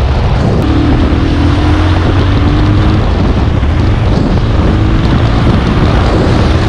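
Bajaj Pulsar 220F motorcycle's single-cylinder engine running under way, mixed with loud wind rush over the microphone. A faint engine note climbs slowly twice as the bike pulls.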